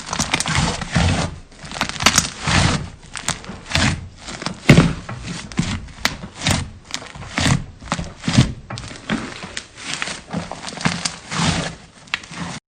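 Slime being squeezed and pressed by hand: a run of irregular squishes with sharp clicks and pops, one or two a second, cutting off suddenly near the end.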